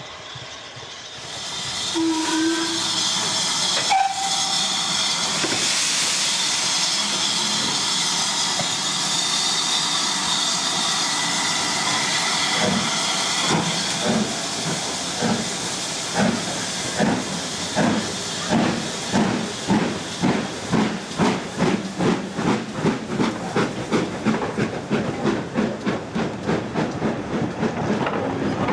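GWR 2884-class 2-8-0 steam locomotive getting under way: a loud, steady hiss of steam, then exhaust beats that come in about halfway and quicken to about three a second.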